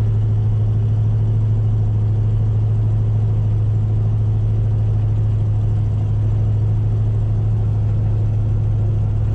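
Chevrolet Camaro Z28's V8 idling steadily while still cold, heard from inside the cabin as an even, deep hum with no revs.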